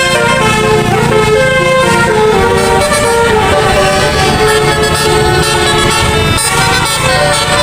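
Bus telolet horn, a set of musical air horns sounding in turn to play a tune of changing notes, over the low rumble of the bus's engine.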